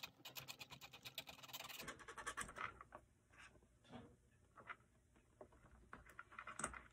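A flat metal blade scrapes a small soldered bullet-connector pin in quick, rapid strokes for about two seconds. A few faint scratches and light clicks follow as a soldering iron is worked at the connector.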